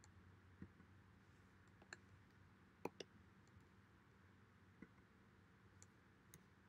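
Faint scattered clicks of a computer mouse, about seven in all, with the loudest a quick pair about three seconds in, over a low steady hum.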